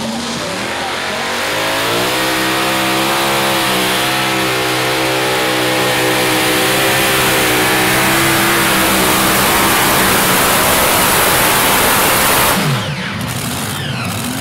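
Modified pulling tractor with several supercharged engines making a full pull at full throttle: the revs climb over the first couple of seconds and hold steady and loud for about ten seconds, then drop away sharply near the end as the pull finishes.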